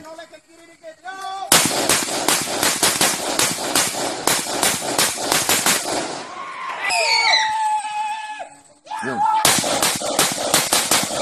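Automatic gunfire in long rapid strings of about seven shots a second, starting about a second and a half in and running for some five seconds. A man's voice calls out, then the rapid fire starts again near the end.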